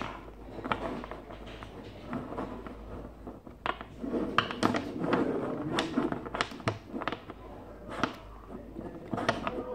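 Football trading cards being handled and sorted in the hands: a string of short clicks and flicks as cards are slid and tapped against the stack, with a stretch of denser rustling about halfway through.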